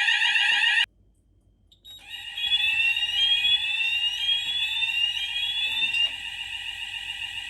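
Hochiki fire alarm sounders sounding in alarm during a detector test. They cut off abruptly a little under a second in, and after about a second of quiet they start again with repeated rising sweeping tones, a little quieter from about six seconds in.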